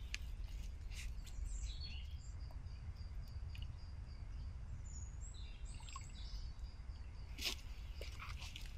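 A small songbird calling: a quick run of short, high notes about a second and a half in, and a few more high calls around the middle. Under it there is a faint, steady low rumble of outdoor noise, and a sharp crackle comes near the end.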